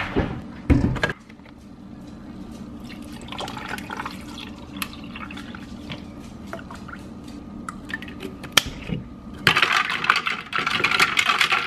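Liquid being poured into a plastic tumbler: coffee and creamer over ice. A few knocks as bottles and the cup are handled on the countertop come in the first second, and there is a louder, noisier stretch near the end.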